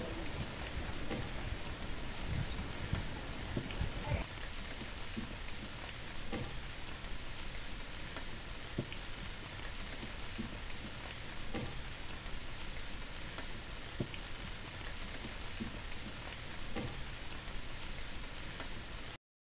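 Steady water noise with small scattered plops and splashes from the surface of a koi pond. It cuts off abruptly just before the end.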